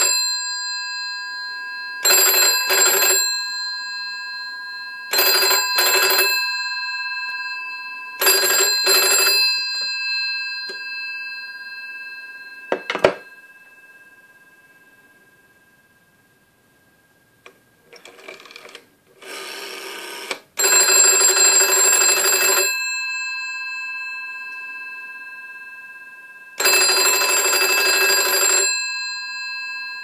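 The electromechanical bell of a GPO 746 telephone ringing in short double rings, repeating about every three seconds, each ring leaving a metallic ringing tail. A single sharp click comes about thirteen seconds in and is followed by a few seconds of near silence. The bell then resumes with longer rings of about two seconds each.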